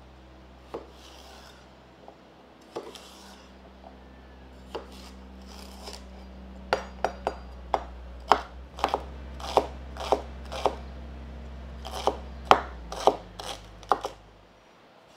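Chef's knife chopping celery on a wooden cutting board: a few separate knocks at first, then quicker runs of chops through the second half.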